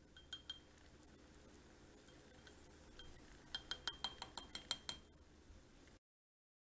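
A stirrer clinking against the inside of a small glass jar of melting crayon wax and coconut oil: two light clicks, then about three seconds in a quick run of about ten clinks with a faint glassy ring.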